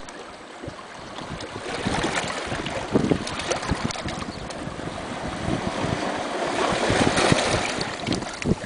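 Small sea waves washing in and out over rocks and pebbles in shallow water, with a fine crackle of water running among the stones. The wash swells about two seconds in and again near the end.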